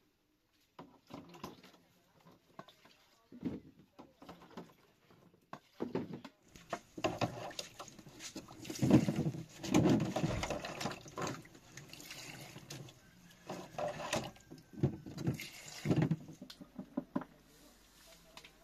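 Water poured from a small cup into a plastic jar packed with cucumbers and herbs, mixed with splashes from the basin and light knocks and clatter of plastic containers being handled. The pouring is heaviest in the middle, with scattered knocks before and after.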